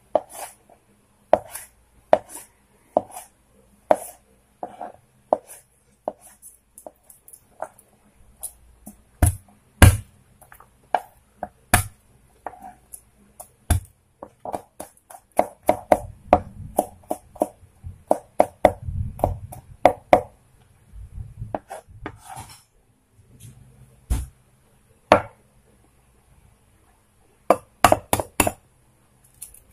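Kitchen knife cutting and chopping on a wooden cutting board, first slicing a tomato and then chopping garlic, with irregular sharp knocks of the blade on the board, sometimes in quick runs. Near the end, a few sharp taps as an egg is cracked against a glass bowl.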